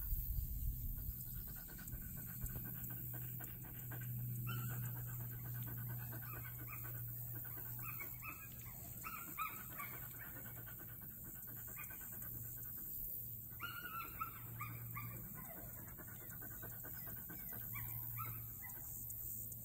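A dog whining and whimpering in bursts of short, high, falling calls that start about four seconds in, over a low steady hum.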